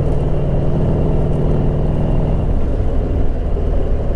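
Motorcycle engine running steadily while the bike is ridden along the road, with wind and road noise on the onboard microphone. The engine note eases a little past halfway.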